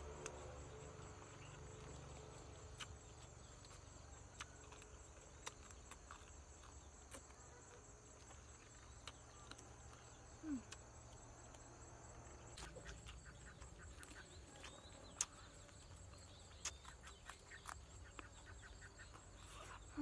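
Faint steady high chirring of insects, with scattered soft clicks and smacks of someone eating with her fingers.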